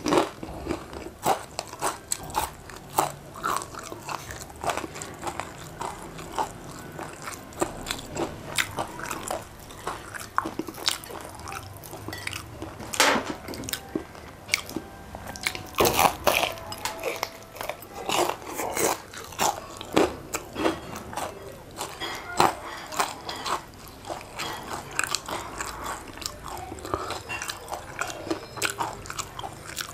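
A person biting and chewing crisp batter-fried chicken wings: irregular crunches and wet chewing sounds throughout.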